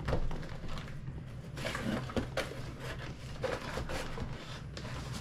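Small cardboard boxes being handled and opened on a table: rustling and scraping of cardboard flaps with soft knocks as the boxes are moved and set down, over a steady low hum.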